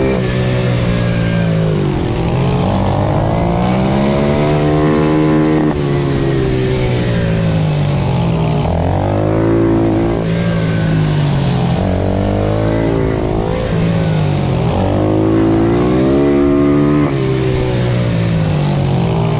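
Pit bike's single-cylinder engine heard from onboard, revving hard with its pitch climbing and then dropping again and again as the rider accelerates, shifts and slows for corners.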